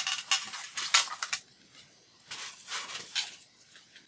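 Paper journal pages being handled and shuffled: a quick run of crisp rustles and light taps in the first second and a half, then a few softer rustles around the three-second mark.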